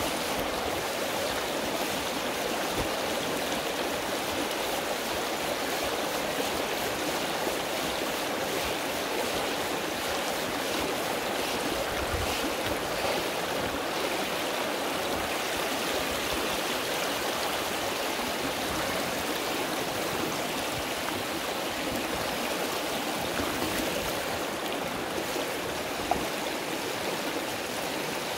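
Shallow river flowing steadily over a gravel and stone bed.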